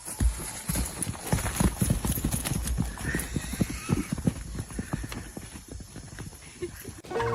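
Hooves clattering on hard ground: a dense, irregular run of sharp knocks, as from several animals walking or trotting.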